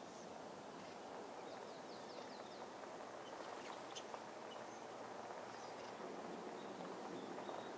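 Steady outdoor rushing hiss with faint bird chirps on top: a quick run of short high chirps about two seconds in, and a thin broken high note near the end. No thunder is heard.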